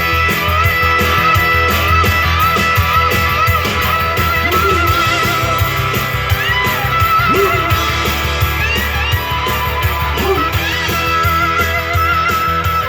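Rock music with no vocals: an electric lead guitar solos with bent notes and vibrato over a steady drum beat and bass.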